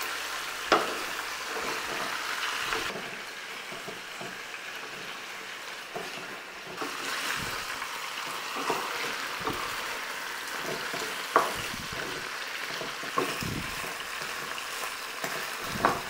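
Chicken pieces sizzling as they brown in hot olive oil in a pan, a steady hiss. Now and then wooden spoons knock against the pan as the pieces are turned.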